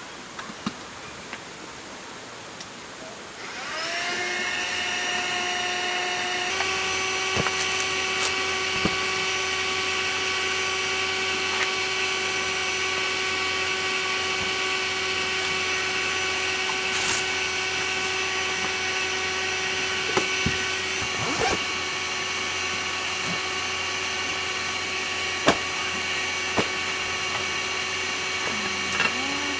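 A small electric motor switches on about three and a half seconds in, its whine rising as it spins up, then runs steadily with a high whine that grows fuller a few seconds later.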